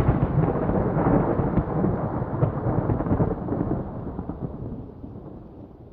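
Thunder following a lightning flash: a loud, rolling rumble that gradually fades over the second half.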